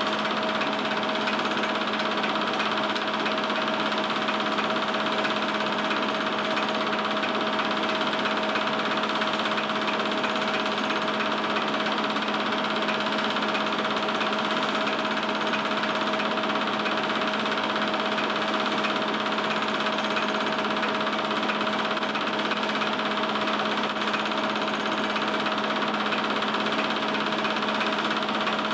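Small film projector running, a steady mechanical whirr with a constant hum that does not change.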